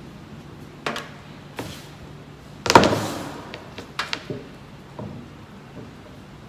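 A series of knocks and clunks from parts being handled on the metal housing of a solder paste mixer, the loudest a heavy clunk about two and a half seconds in that rings on briefly.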